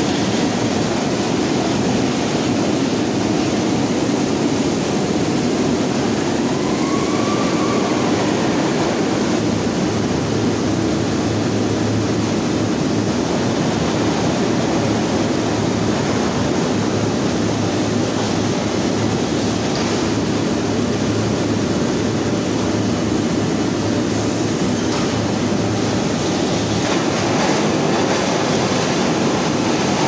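Steady, loud machinery noise of a hot rolling mill, with powered roller tables and mill stands running as red-hot steel bars are carried along them. A faint whistle rises and falls about seven seconds in.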